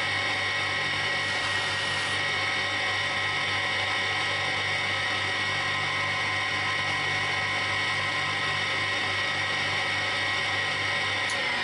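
Belt-driven bench buffing machine running steadily, its motor and spinning cloth polishing wheels giving a constant hum with a high whine. A click near the end.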